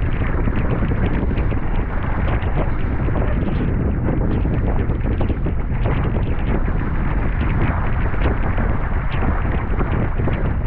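Wind buffeting the microphone over the steady rush and splash of water along a Sunfish sailboat's hull as it sails. Short splashes break through the noise throughout.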